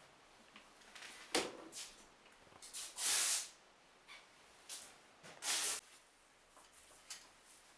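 Handling noises as a plastic bidet seat is worked on: a sharp knock about a second and a half in, then two short hissing rushes, about three seconds and about five and a half seconds in, with a few small clicks between.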